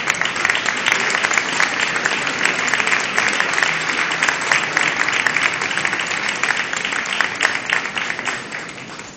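Audience applauding, a crowd clapping steadily that dies away near the end.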